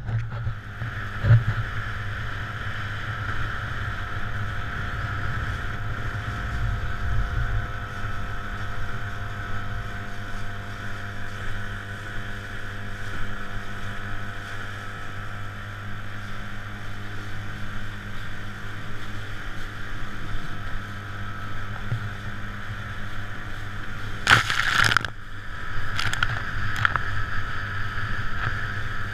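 Bateau SK13 skiff under way through choppy water: a motor drones at a steady pitch over the rush and slap of water against the hull. There is a thump about a second in, and a brief loud burst of noise about 24 seconds in.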